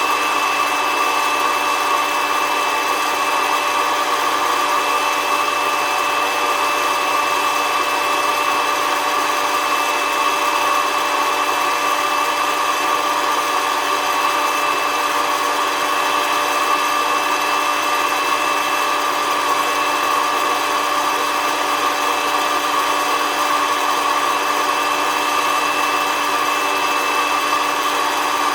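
SOUYI SY-121N hot-air coffee roaster running: its fan motor makes a steady whir with a constant high hum.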